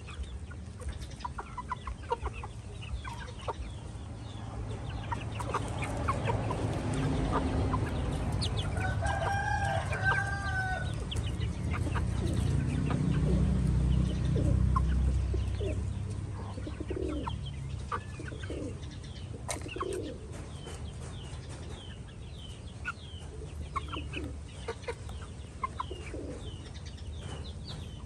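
Young Vietnamese and Brazilian-breed chickens clucking as they peck at grain, with many short high chirps throughout. A rooster crows once near the middle, a call of about two seconds. A low rumble swells under the middle third.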